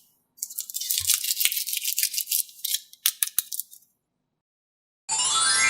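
A dense, crackling rattle for about three seconds. After a short pause, a rising whistle-like sound effect starts near the end.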